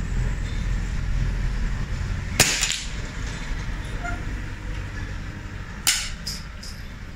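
A single shot from a .22 LR rifle fitted with the SAK sound moderator about two and a half seconds in: a short sharp crack with a brief tail. About three and a half seconds later comes a sharp clack and two small clicks as the rifle is handled, all over a low steady rumble.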